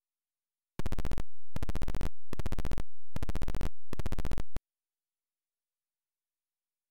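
Harsh electronic buzzing in five bursts of about half a second each, made of rapid even clicks, from the GS Plus Apple IIGS emulator's sound output as it starts without a ROM image loaded. It then cuts off dead.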